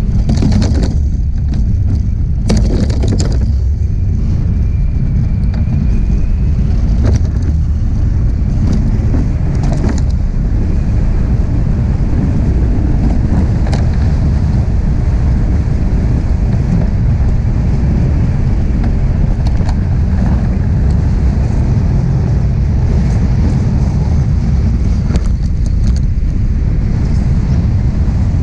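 Steady low rumble of a DN iceboat's runners sliding fast over lake ice, mixed with wind on the microphone. A few short sharp crackles come in the first few seconds and again a little later.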